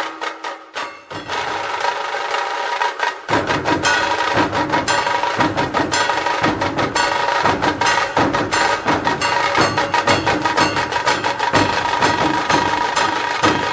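Background music driven by rapid, dense drum strokes over a steady melodic tone. About three seconds in, a low bass layer comes in and the music gets fuller.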